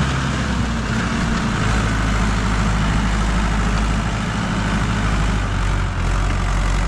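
Mahindra 575 tractor's diesel engine running steadily under load while pulling a heavily loaded trailer over rough ground.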